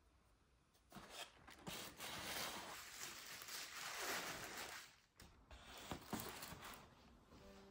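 Paper rustling and crinkling as kraft-paper gift bags stuffed with tissue paper are handled and set down, with a few light knocks.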